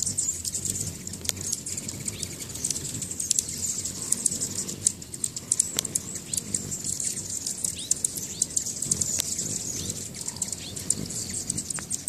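Hummingbirds at a nectar feeder: a steady, high, rapid twittering and whirring of wings, with scattered sharp clicks and a few short chirps.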